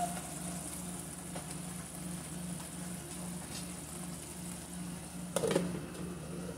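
Tomato sauce simmering softly in a frying pan over a steady low hum. About five seconds in, a glass pan lid clinks down onto the pan with a short ring.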